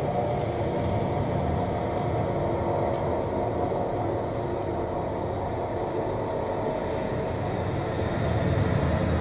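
A steady rumbling noise, even throughout and a little louder near the end.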